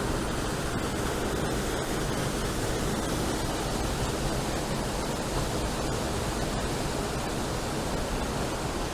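Waterfall rushing steadily, a constant even wash of falling water.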